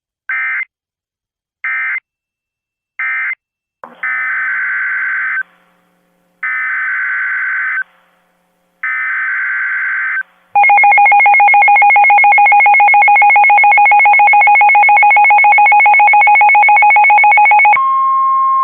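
Emergency Alert System SAME data bursts, the warbling two-pitch digital squawk: three short end-of-message bursts, then three longer header bursts for the next alert. About ten seconds in comes a loud, buzzing, rapidly pulsing alert tone, which near the end gives way to a single steady tone, the weather-radio warning alarm tone.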